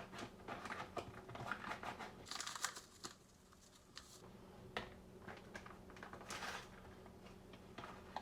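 Brown gravy mix packets crinkling and being torn open, with two short hissing bursts about two and a half and six seconds in.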